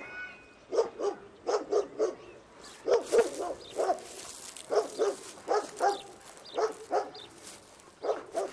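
A dog barking over and over, short barks in quick runs of two or three.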